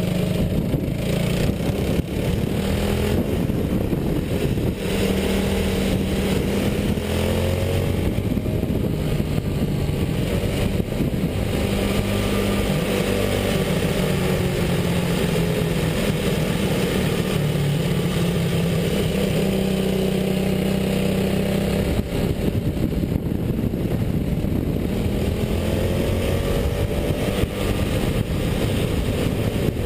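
Go-kart engine running hard under the driver, heard from a camera mounted on the kart, its pitch repeatedly climbing as the throttle is opened and dropping as it lifts.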